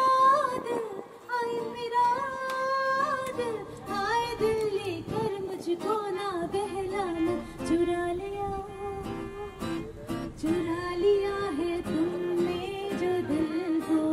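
Live acoustic music: a woman sings long, wavering held notes with no clear words, accompanied by violin and acoustic guitar.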